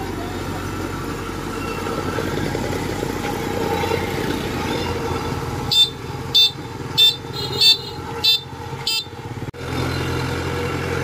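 Kubota DC-93 combine harvester's diesel engine running steadily as the machine moves on its tracks. A little past halfway, six short high beeps sound about two-thirds of a second apart, the loudest sound here.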